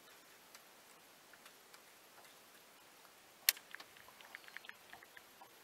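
Spinning or casting fishing reel being worked: a sharp click about three and a half seconds in, then a quick run of small irregular ticks, with a few faint ticks before it.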